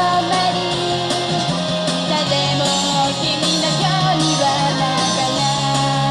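Live idol pop performance: an upbeat pop song with young women singing over a backing track, played loud and steady through the stage PA speakers.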